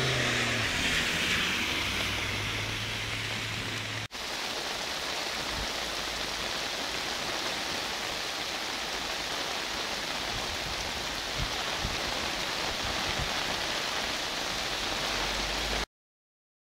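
Heavy rain falling on a flooded street, a steady hiss of rain on standing water. For the first four seconds a car drives through floodwater, its engine hum under the spray of the tyres; the sound cuts off abruptly near the end.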